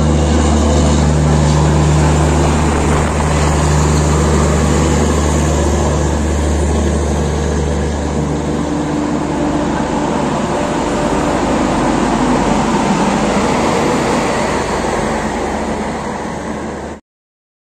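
Moving passenger train running, a loud steady rumble with a deep hum that fades away about halfway through. The sound cuts off abruptly near the end.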